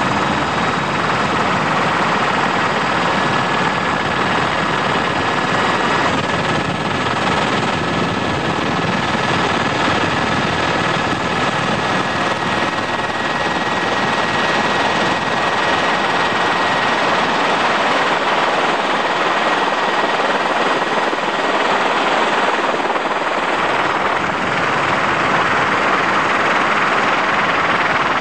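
Helicopter running steadily, heard from inside the cabin: a constant, unbroken engine and rotor noise with a faint steady whine.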